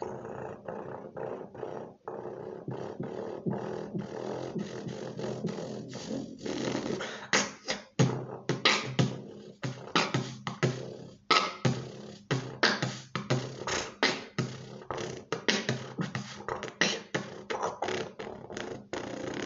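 Beatboxing built on snore bass, a rasping, snore-like bass made on the inward breath, mixed with sharp snare and click sounds. About seven seconds in, the beat gets harder, with loud hits several times a second.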